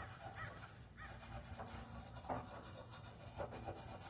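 Faint, fast scratchy rubbing from cleaning at a truck's batteries, over a low steady rumble.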